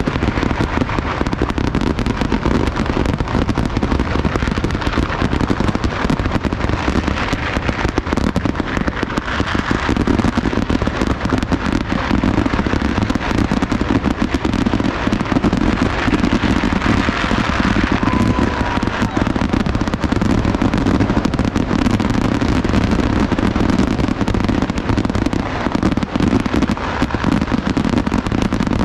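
Kerala vedikkettu fireworks: a dense, unbroken barrage of rapid bangs and crackling.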